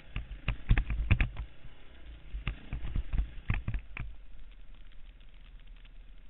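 Enduro motorcycle ridden over a rough forest trail: a low steady rumble with irregular knocks and rattles, thickest in the first second and again around three to four seconds in, then quieter.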